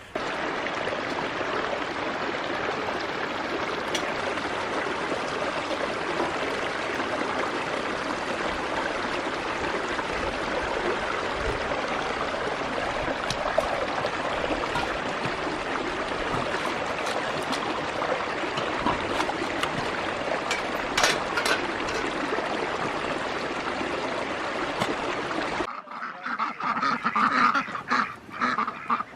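A flock of domestic ducks and geese calling together in a dense, steady chorus. About 26 seconds in it cuts to separate duck quacks.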